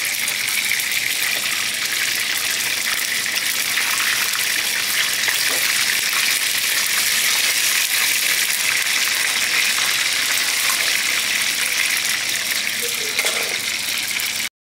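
Dough pastries deep-frying in a pot of hot oil, the oil sizzling with a steady hiss that cuts off suddenly near the end.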